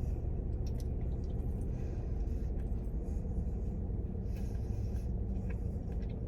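Steady low hum of a car cabin, with faint small clicks and mouth sounds of someone chewing food.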